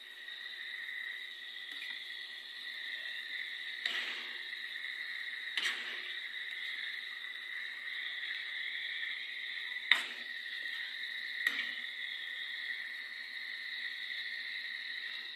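Metal spoon clinking and scraping against an aluminium pan every couple of seconds as pork and shrimp paste are stirred, the sharpest clink about ten seconds in, over a steady high-pitched whine.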